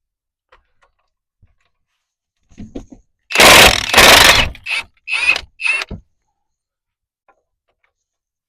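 Hercules 20-volt half-inch cordless impact wrench hammering bolts tight: a long burst of impacts a little past three seconds in, then three short blips of the trigger, with a few smaller bursts just before.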